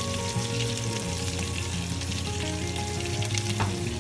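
Mustard seeds, green chilies and cumin seeds sizzling and crackling in hot vegetable oil in a pan, with steady background music under it. A single sharp knock near the end.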